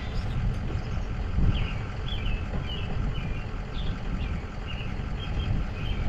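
Truck running with a steady low rumble, with short high chirps scattered over it.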